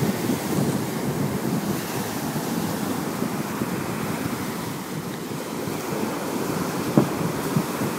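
Surf breaking on the shore, a steady rushing noise, with wind buffeting the microphone. A single sharp click near the end.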